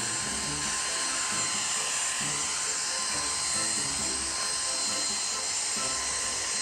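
A steady high-pitched whine, like a small electric motor running, with music playing under it. It starts just before and stops just after.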